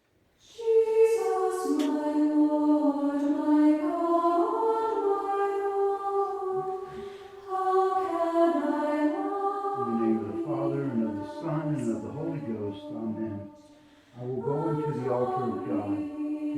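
A choir singing slowly in long, held notes. From about ten seconds in, lower men's voices join with shorter, quicker phrases over the held notes.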